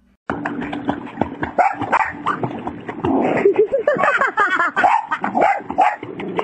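A dog barking and yipping repeatedly amid splashing water, starting abruptly just after the beginning.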